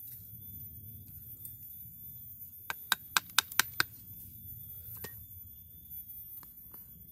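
A chisel being struck to split a ficus root: a quick run of six sharp knocks, about five a second, a little under three seconds in, then a single knock about two seconds later.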